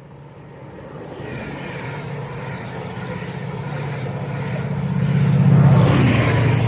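Chiltern loco-hauled passenger train approaching and passing, Class 82 driving van trailer leading with a Class 68 diesel locomotive at the other end: a steady low diesel hum with wheel and rail noise, growing louder to a peak near the end.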